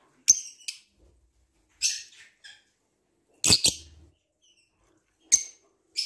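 Lovebirds giving short, shrill chirps in quick bursts every second or two, the loudest about halfway through.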